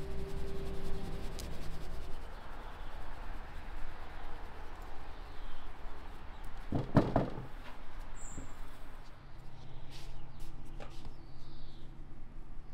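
Round wooden flour sieve shaken over an enamel bowl, flour rustling softly through the mesh, with one louder knock about seven seconds in and a few faint high chirps after it.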